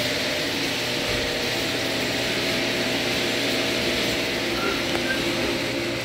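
A steady machine drone with a constant low hum and an even hiss over it.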